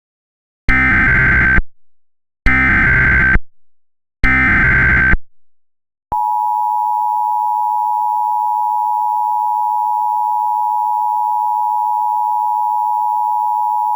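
Emergency Alert System signal: three short bursts of SAME digital header data, each about a second long, carrying the header for a tornado warning, then the two-tone EAS attention signal held steady for about eight seconds before cutting off.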